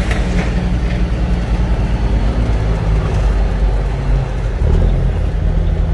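Cummins ISX diesel engine of a semi truck running steadily while rolling down the road, heard from inside the cab with road noise. The engine dips briefly about four seconds in, then picks back up.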